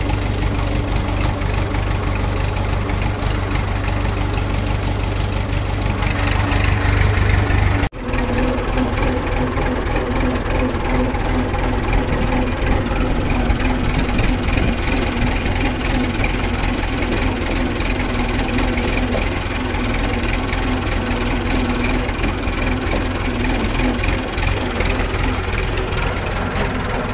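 Tractor diesel engine running steadily while pulling a loaded trailer. About eight seconds in the sound breaks off for an instant and resumes with a somewhat different, steady engine note.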